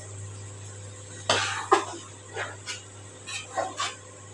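Two short coughs about a second in, then a few light scrapes and taps of a metal spatula stirring thick curry in a steel pot.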